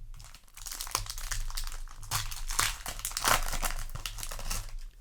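Yu-Gi-Oh! booster pack's foil wrapper crinkling as it is handled and opened, a dense irregular crackle lasting a few seconds.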